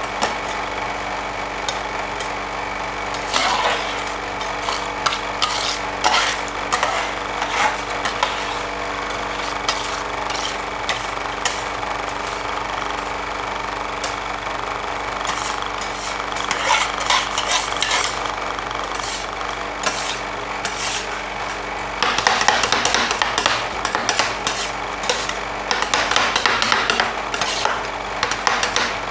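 Two steel spatulas chopping red dragon fruit into ice cream base on a stainless steel ice-cream-roll cold plate: quick metal taps and scrapes on the plate over the steady hum of the machine. The chopping gets faster and louder in the last several seconds.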